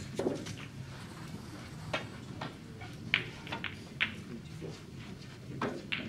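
Scattered sharp clicks and taps in a snooker hall, about ten in a few seconds, over a low steady hum of room noise.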